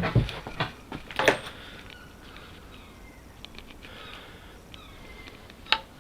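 A few sharp knocks and clicks in the first second and a half, with one more near the end. Between them a cat meows faintly, short calls that fall in pitch.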